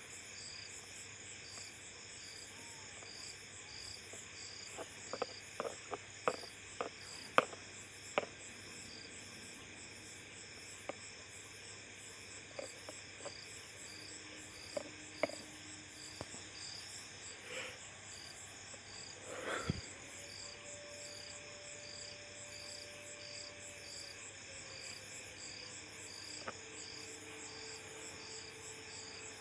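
Hand assembly of a rolling-mill bearing chock's oil-line fittings: a run of sharp metallic clicks and taps about five to eight seconds in, a few more later, over a faint, steady, rhythmically pulsing high chirp in the background.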